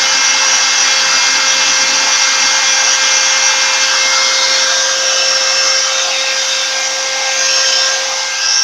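Spindle motor of a homemade CNC machine running steadily with a high hiss and a constant whine, easing slightly in level partway through and picking up again near the end.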